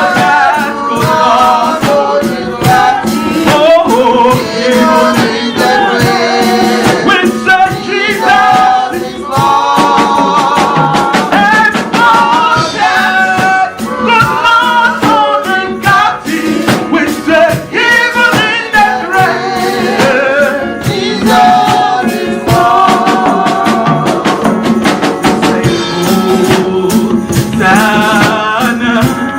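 Gospel worship song: voices singing over band accompaniment, with shaken hand percussion running through.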